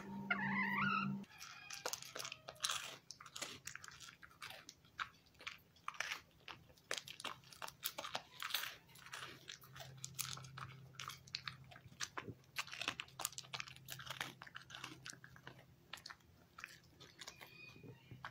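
A dog eating small treat cubes from a plastic bowl, chewing with many irregular sharp crunches. A brief warbling sound comes in the first second.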